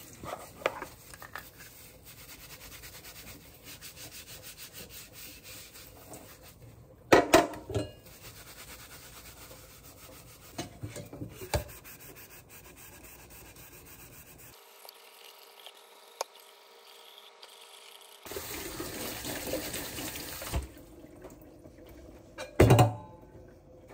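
Hands scrubbing a tumbler and its lid at a kitchen sink: a steady wet rubbing with small clicks. Water runs from the tap for a few seconds about three quarters of the way through, and two loud clunks sound, one about a third of the way in and one near the end.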